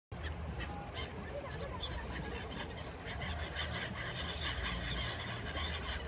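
A flock of migratory birds calling, many short calls overlapping, over a low steady rumble.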